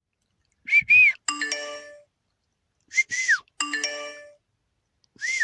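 A person whistles short notes, and a phone running a whistle-finder app answers each time with a short multi-tone chime, the app's alert that it has heard the whistle. This happens twice, and a third whistle starts near the end.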